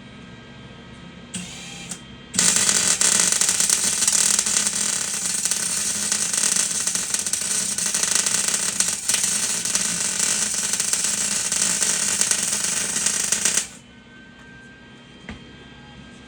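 Flux-core welding arc laying a stitch weld: a brief strike about a second and a half in, then a steady crackling, a little sputtery, for about eleven seconds before it cuts off suddenly.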